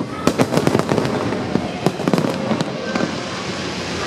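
Fireworks going off: many sharp bangs in quick succession, thinning out after about a second and a half into a steady hiss with a few scattered bangs.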